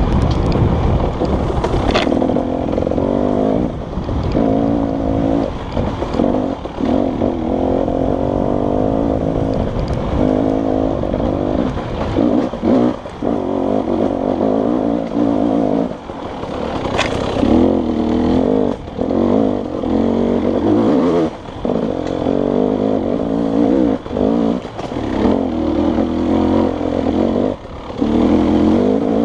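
Dirt bike engine running under load on a rough trail, revving up and dropping back again and again as the throttle is worked, with short gaps as it is shut off. Two sharp knocks sound, about two seconds in and again near the middle.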